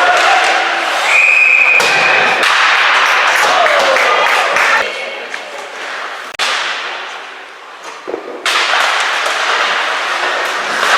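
Ice hockey game sounds in a rink: sharp clacks and thuds of sticks, puck and boards over a steady noisy arena background, with a brief steady whistle-like tone near the start.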